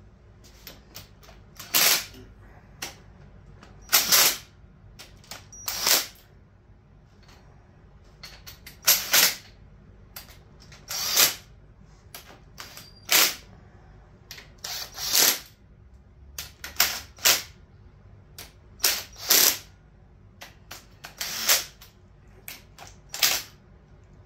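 A cordless impact driver fires in short rattling bursts, about a dozen of them roughly two seconds apart, running the cylinder head bolts of a Ford 428 FE big-block snug before torquing.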